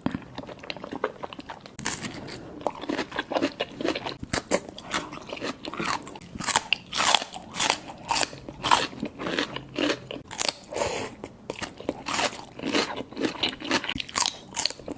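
Close-miked mukbang eating sounds: a continuous run of bites and wet, smacking chewing of shrimp seafood-boil food, with many small crackles and clicks.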